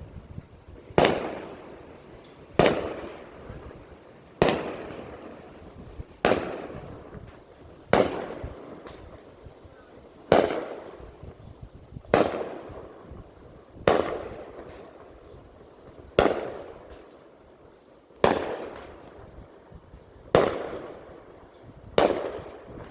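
Aerial fireworks bursting overhead: about a dozen heavy booms, one roughly every two seconds, each trailing off in a rolling echo.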